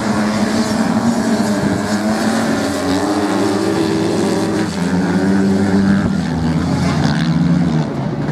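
Several motocross bikes racing together, their engines revving hard, with the pitch climbing and dropping back again and again.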